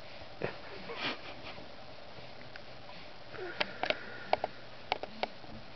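Hiccups with sniffing breaths: a couple of soft sounds in the first second, then a quick run of short, sharp clicks past the middle.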